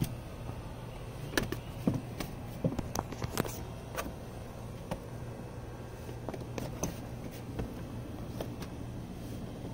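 Worn soccer ball being tapped and rolled with sneakers on a wooden deck: irregular knocks and scuffs of ball and shoes on the boards, several close together between one and four seconds in, over a steady low hum.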